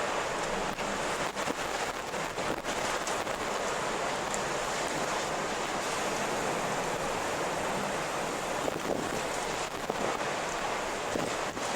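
Strong wind blowing steadily: a dense rushing hiss with small gusty swells and faint crackles here and there.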